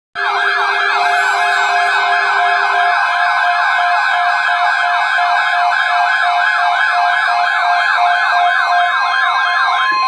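Several NOAA weather radios sounding their alert alarms at once, starting abruptly: siren-like warbling sweeps, about three a second, over steady alarm tones, with a lower steady tone that stops about three seconds in. The alarms mean the radios have received a National Weather Service flash flood watch alert.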